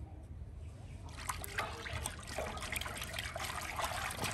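Water trickling and splattering, starting about a second in and running on steadily as a dense patter.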